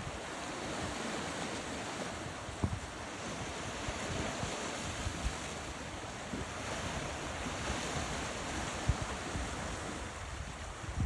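Ocean surf breaking and washing on a beach, a continuous hiss that slowly swells and eases, with wind buffeting the microphone in a few short low thumps.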